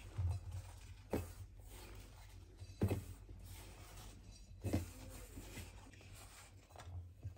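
Quiet rubbing and squishing of a hand mixing whole-wheat flour and water into dough in a steel bowl, with a few faint knocks against the bowl.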